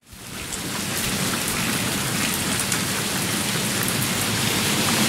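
Steady rain falling, fading in over the first half second.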